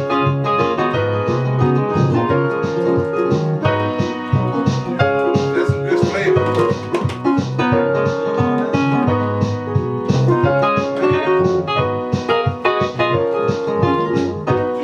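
Electric keyboard played with a piano sound: chords and a melody in a steady rhythm.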